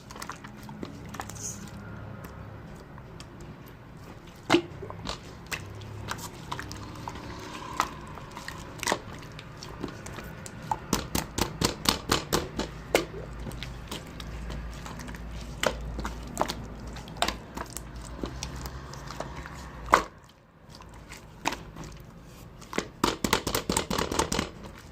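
Clear slime being squeezed and pressed by hand, giving sticky clicks and small air-bubble pops, with quick runs of clicks about halfway through and again near the end.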